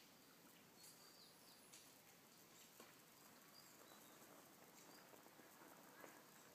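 Near silence: faint outdoor ambience, a soft hiss with a few faint ticks and short high chirps.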